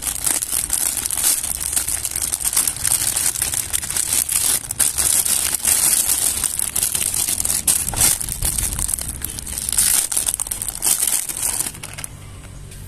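Thin clear plastic packaging bag crinkling and rustling continuously as it is unwrapped by hand, stopping near the end.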